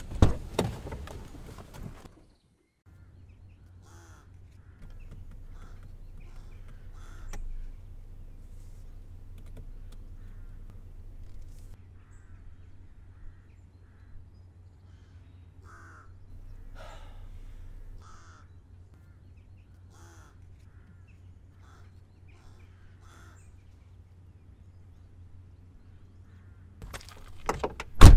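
Crows cawing again and again, over a steady low hum. A loud sound comes right at the start, and a louder burst of sounds near the end, where the car's engine is being started.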